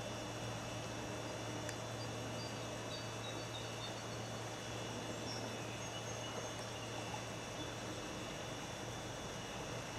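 Steady rush of a wide river running high and fast, at about 6,500 cfs, with a low steady hum underneath. High steady insect trilling and a few short high chirps sit above it.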